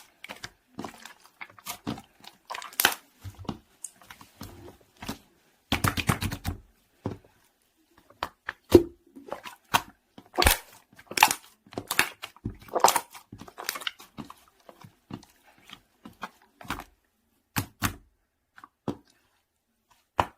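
Slime being squeezed, stretched and poked by hand, giving irregular sticky pops, clicks and crackles, with a denser run of crackling about six seconds in.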